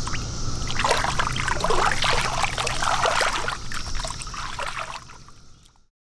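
Shallow water splashing and sloshing as a released carp kicks free from a hand at the water's edge, the splashes dying away near the end. A steady cicada drone runs faintly behind.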